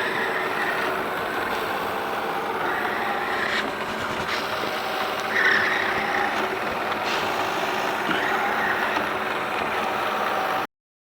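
Chuwi ILIFE V7S robot vacuum running: a steady whir of its motor and brushes with a few faint clicks, cutting off suddenly near the end.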